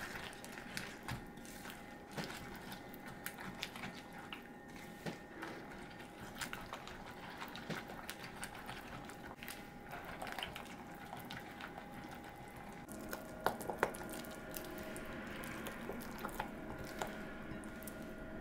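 Thick cake batter with crushed Oreo cookies being stirred in a bowl: irregular small wet clicks as the utensil works through the mixture.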